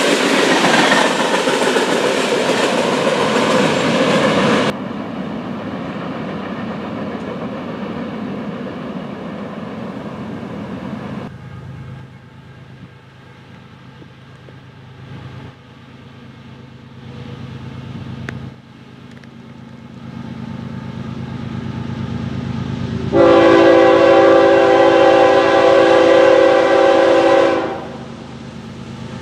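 Freight cars rolling past on the rails, cut off suddenly about five seconds in. Then the low rumble of an approaching BNSF diesel locomotive builds, and it sounds its multi-note air horn in one long blast of about four seconds near the end.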